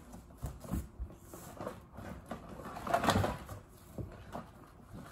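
Rummaging through a cardboard box of loose tools and parts: light knocks, clicks and rustling as items are shifted, with a louder burst of handling about three seconds in.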